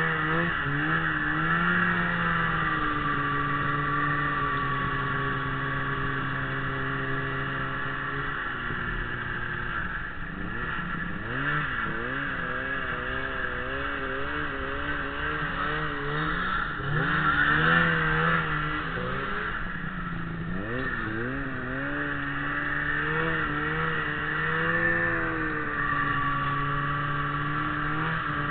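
Ski-Doo Summit 600 SDI snowmobile's two-stroke twin engine running under way over a steady hiss. Its pitch holds steady for several seconds, then rises and falls repeatedly through the middle with the throttle, and settles again near the end.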